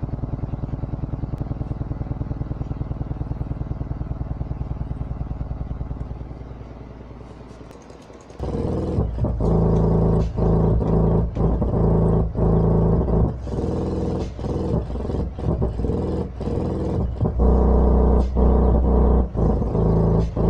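Sony Xplod car subwoofer playing bass unmounted in free air, with no enclosure. A steady low bass drone fades out after about six seconds, and then bass-heavy music with a strong, regular beat starts and keeps going.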